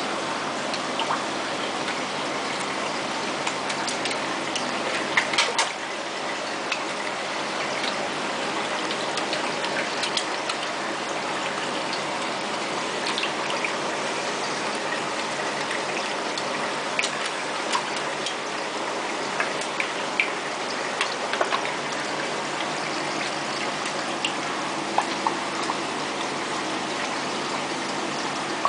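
Steady running water in a fish tank, with frequent small splashes and drips plinking on the surface.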